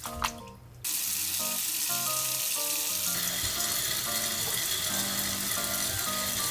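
Tap water pours in a steady stream into a plastic basin of water in a steel sink, soaking a mesh filter. The stream starts about a second in, after a brief splash.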